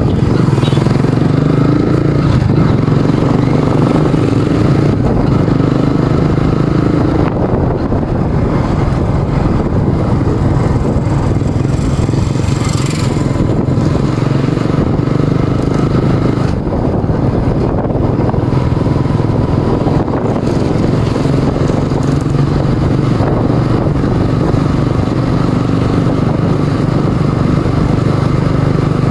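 Motorcycle engine running at a steady cruise, heard from the rider's seat, with road and wind noise.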